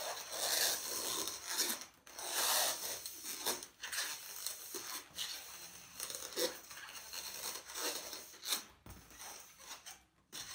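Inflated latex twisting balloons rubbing and squeaking against each other as one long balloon is wound in a spiral around another. It comes as an irregular run of rasping strokes, louder in the first few seconds and fainter after.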